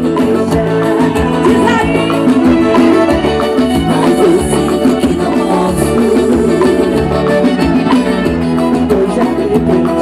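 Live forró band playing, with a woman singing into a microphone over accordion and band.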